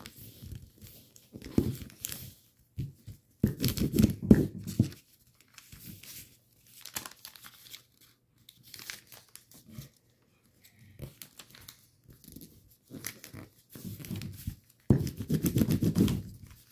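A sheet of origami paper being folded and creased by hand: irregular rustling and crinkling, loudest about four seconds in and again near the end, with a short lull around the middle.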